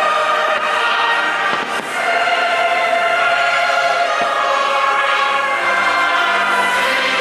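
Choral music with singing voices plays steadily, with the bangs of firework shells bursting now and then underneath it.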